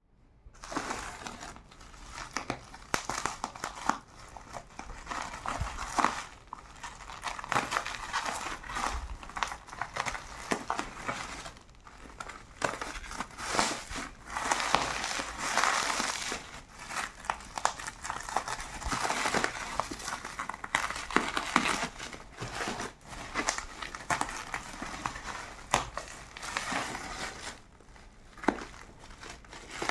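Parcel packaging crinkling and crackling as it is opened by hand, with dense, irregular rustles and sharp crackles throughout.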